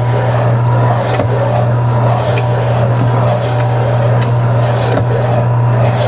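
KWS 320-watt electric meat slicer with a 10-inch blade running with a steady hum as meat is pushed through the spinning blade on the sliding carriage. Scraping and a few sharp clicks from the carriage and the cut meat come over the motor.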